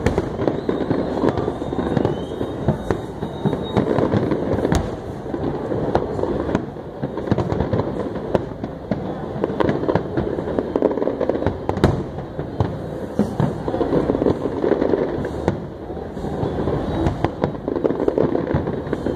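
Fireworks display with a continuous dense barrage of bangs and crackling, shells bursting in quick succession with no let-up.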